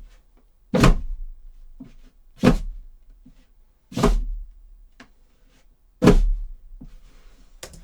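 Foley footsteps on wooden beams: four slow, heavy steps about one and a half to two seconds apart. Each is a sharp knock with a short decay, with faint small knocks and scuffs between them.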